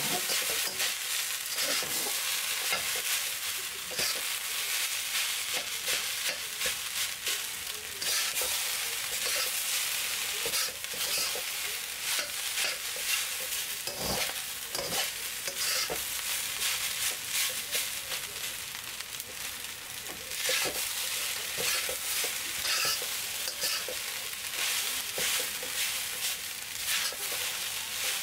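Glutinous rice stir-frying in a steel wok: a steady sizzle with the repeated scrape and clack of a metal spatula against the wok as the rice is tossed.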